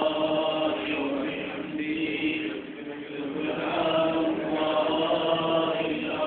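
Men's voices chanting together in long held notes, a devotional chant, with a short break in the chanting about three seconds in.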